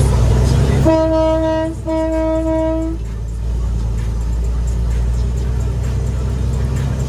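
A truck air horn sounds two blasts of about a second each, back to back, on one steady pitch, over a diesel truck engine running steadily.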